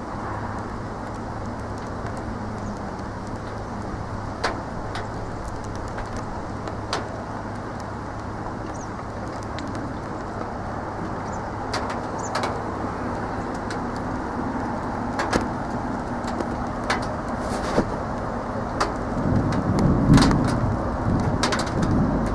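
Steady outdoor rumble with a low hum underneath, broken by scattered small sharp clicks. A louder low rumble swells about nineteen seconds in.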